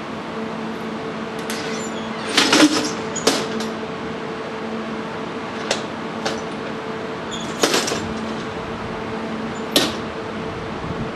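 Sharp knocks and metal clacks, about half a dozen with the loudest a couple of seconds in and again near eight seconds: the front gangway door and end fittings of a Kintetsu 30000 series Vista EX being opened and latched back by hand to ready it for coupling. A steady hum runs beneath.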